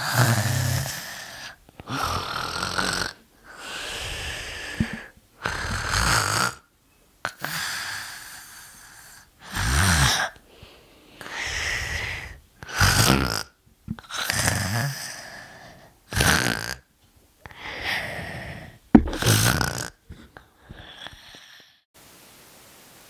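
A person snoring, about a dozen snores in a row, one every one and a half to two seconds. The snoring stops about twenty seconds in, leaving a faint steady hiss.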